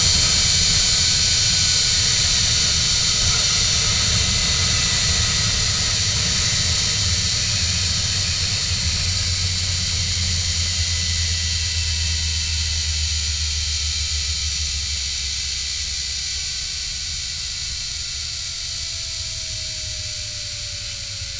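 Zipline trolley pulleys running along the steel cable, with wind noise: a steady hiss and low rumble with a faint whine that slowly falls in pitch. The whole sound grows gradually quieter as the rider slows toward the end of the line.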